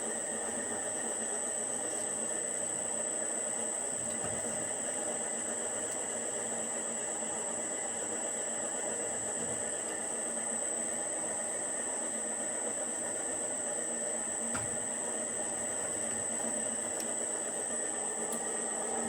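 Homemade cold-forging torsion machine, an electric motor on a frequency converter driving a motorcycle gearbox, running steadily at low speed while twisting a 15×15 mm square steel tube. A constant high-pitched whine sits over the drive noise.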